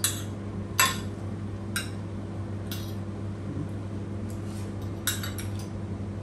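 Metal fork and spoon clinking and scraping against a plate during eating, with sharp clinks about a second apart, the loudest a little under a second in, and a quick run of three or four about five seconds in. A steady low hum sits underneath.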